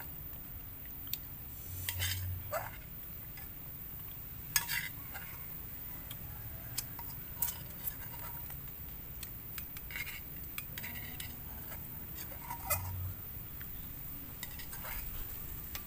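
A metal spoon scraping and clinking in a metal rice pot as the last of the rice is scooped out, with chopsticks and metal bowls clinking. The sounds are scattered clicks and short scrapes, a few sharper clinks standing out.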